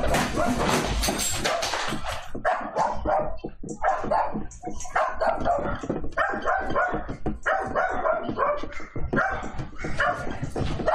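A dog barking over and over in a room shaking in an earthquake, with loud rumbling and rattling for the first couple of seconds and clattering between the barks.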